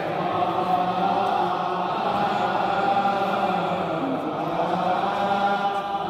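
Several voices chanting a prayer together in a continuous sung chant, with lower voices and higher held tones over them, from a procession of clergy carrying candles.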